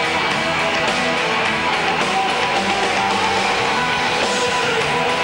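Heavy rock music led by electric guitar, loud and steady.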